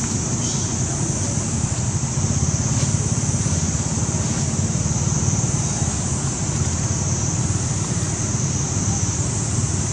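Wind buffeting the microphone: a steady low rumble under a constant high-pitched hiss.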